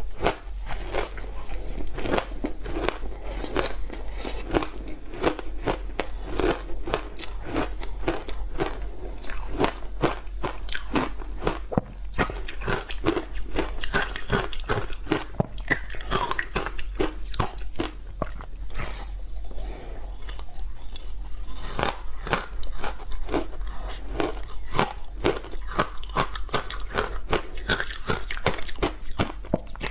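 A frozen block of matcha tea and sweet potato powder ice being bitten and chewed: a continuous run of crunching and cracking, with a steady low hum underneath.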